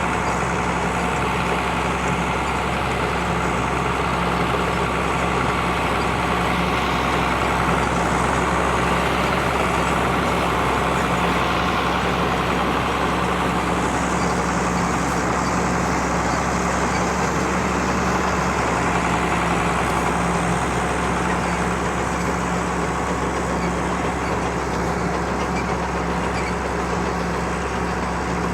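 Tractor diesel engine running steadily at constant speed, with a continuous drone.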